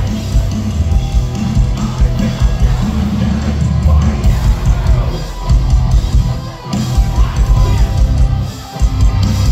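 Loud live metalcore band playing, with bass, electric guitar and drums under a singer's vocals, heard from within the crowd. The low end drops out briefly about five and a half seconds in and again near the end.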